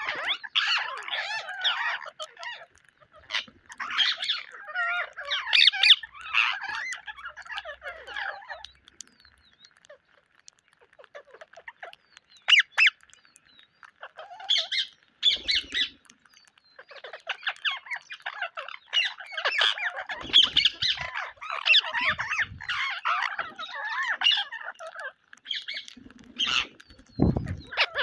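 A flock of rose-ringed parakeets calling with shrill squawks and chatter in dense bursts, easing to a few scattered calls in the middle before building again. A low thump close to the microphone near the end.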